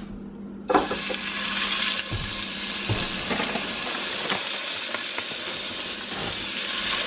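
Ground elk burger patties dropped into hot bacon grease in a frying pan, sizzling hard. The sizzle starts suddenly about a second in as the first patty hits the grease and keeps going as more patties are laid in.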